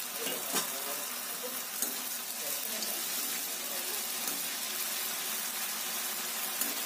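Spinach-dough triangles deep-frying in hot oil in an iron kadhai: a steady sizzle of bubbling oil, with a couple of sharp ticks in the first two seconds.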